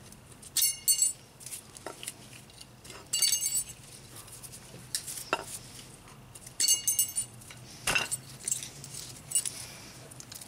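Old steel anti-rattle clips being pried off a brake caliper bracket with a pick: sharp metallic clinks that ring briefly, three stronger ones about a second in, at about three seconds and near seven seconds, with lighter clicks between.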